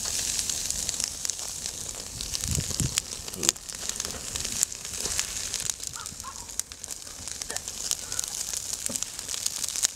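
Wood fire crackling under a grill grate, with a steady hiss as raw mutton is laid on to sear. A couple of soft thumps about three seconds in as the heavy cuts are set down on the grate.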